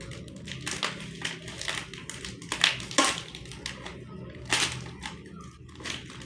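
Plastic snack packet crinkling as it is torn open and handled: a run of irregular crackles, with a few louder ones around two and a half, three and four and a half seconds in.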